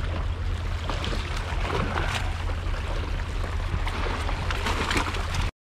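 Seawater sloshing and splashing against a rock shoreline over a steady low rumble, with a few short sharp splashes, cutting off suddenly near the end.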